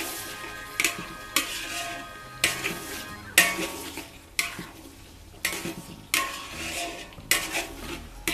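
Metal spatula scraping and clanking against a metal wok as a vegetable-and-pork stir-fry is tossed, in irregular strokes about once a second.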